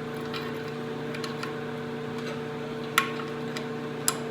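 A few light metallic clicks and ticks over a steady electrical hum, with two sharper clicks about three and four seconds in, the first with a short ring. They are typical of small steel parts, such as the freshly extracted bolt with its welded-on nut, being handled.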